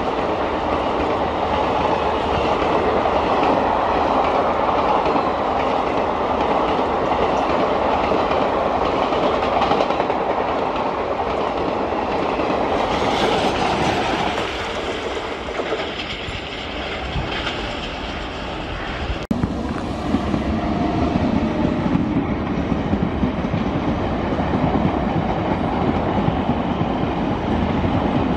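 Express passenger train coaches running past at speed: a continuous rush with wheels clattering over the rail joints. About two-thirds through, the sound breaks off sharply and a steadier rumble of a train on the line takes over.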